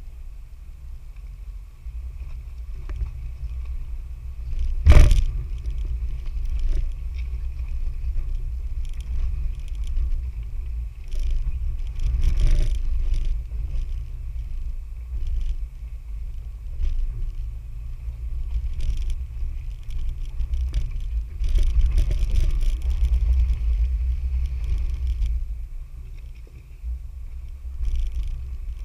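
A 4x4 driving over a rough off-road trail: a steady low rumble with scattered knocks and clunks from the vehicle. The loudest is a sharp thump about five seconds in.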